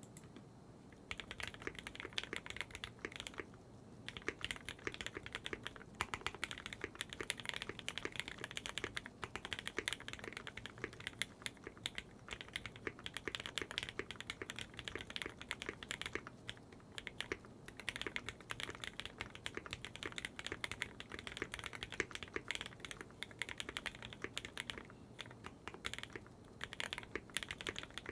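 Typing on a Brutal60 mechanical keyboard with lubed, retooled Cherry MX Black linear switches on a burger-mounted FR4 plate, with GMK keycaps. A fast, continuous run of keystrokes starts about a second in, broken by a few brief pauses.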